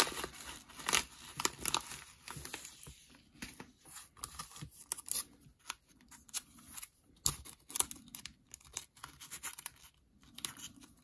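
A yellow padded paper mailer being torn open, then a stack of trading cards in plastic sleeves and top loaders handled and slid apart. The sound is a string of irregular tearing rustles, crinkles and small ticks.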